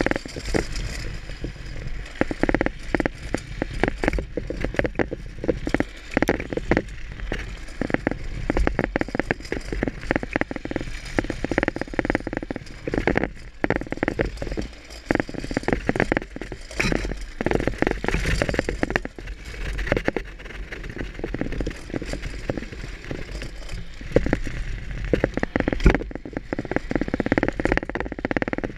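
Onboard vehicle noise during a drift run: a steady rumble of wheels on the road with wind buffeting, under constant irregular clattering and crackling knocks.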